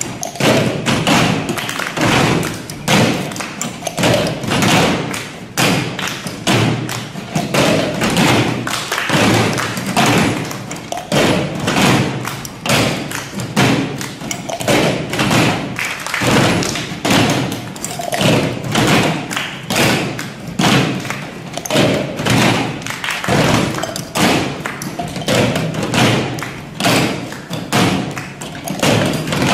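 Ensemble cup-and-clapping percussion: many hands clapping in unison while cups are knocked and tapped on a tabletop, in a dense, steady rhythm of sharp claps and thumps.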